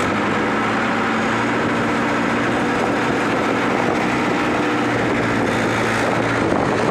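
Mahindra 575 tractor's four-cylinder diesel engine running at a steady, unchanging engine speed.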